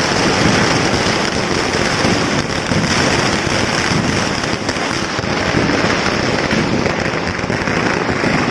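Ground-level firecrackers going off in a dense, continuous crackle, countless small reports in rapid succession with no pause.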